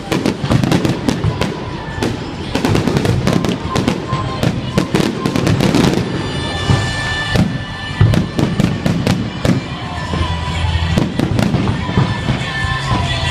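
Fireworks going off in a dense, continuous run of bangs and crackles, with steady ringing tones underneath from about halfway through.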